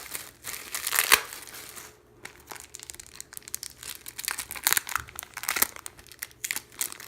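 Crinkling and rustling of album packaging being handled and pulled at while someone tries to open it, in irregular bursts, loudest about a second in.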